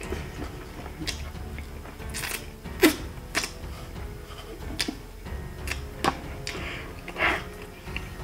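A person eating chicken wings close to the microphone: irregular wet smacks, sucks and clicks from lips and mouth as meat is pulled off the bone and chewed, with a few sharper, louder smacks among them.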